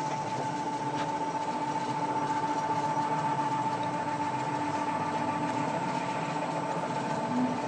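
DTJ-C semi-automatic capsule filling machine running: a steady motor hum with a high whine that holds one pitch.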